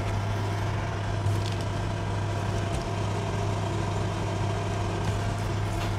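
Steady low machine hum at a constant pitch and level, from a running motor in the room or nearby.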